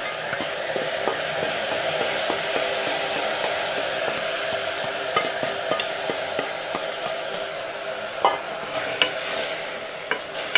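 Sprouted beans frying in hot oil in an aluminium pressure cooker: a steady sizzle, with scattered clicks and taps from a spatula scraping them out of a steel bowl and stirring. The sizzle eases a little near the end.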